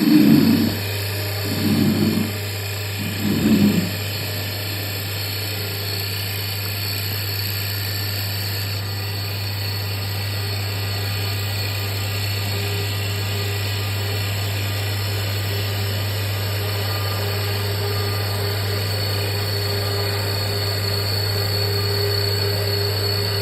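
Automatic mini CNC wood bead making machine running: a steady low motor hum with a thin high whine. Three short, louder low sounds come in the first four seconds, under two seconds apart.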